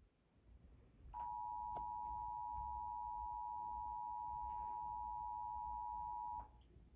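Emergency Alert System attention signal: two close pitches sounded together as one steady electronic tone. It starts about a second in, holds for about five seconds, then cuts off, announcing an Amber child abduction alert.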